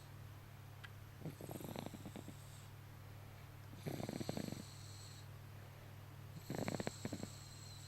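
A baby snoring: three rattly snores, each under a second, about two and a half seconds apart, over a steady low hum.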